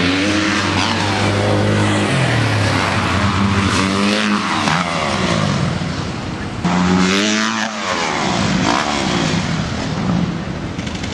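Freestyle motocross dirt bike engine revving, its pitch climbing and dropping several times with the throttle. The level jumps up suddenly about two-thirds of the way through.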